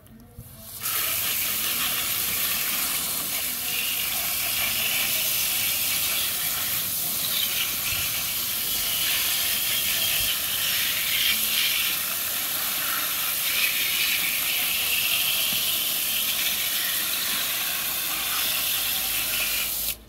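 Pistol-grip garden hose nozzle spraying a water jet onto mud-covered plastic toy vehicles, washing the mud off: a steady hiss that starts about a second in.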